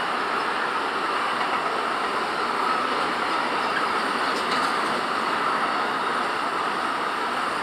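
A train rolling past on the track: a steady noise of wheels running on the rails.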